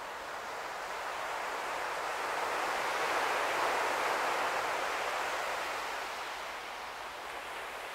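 A passing vehicle's tyre and road noise, a hiss that swells to a peak midway and fades away again.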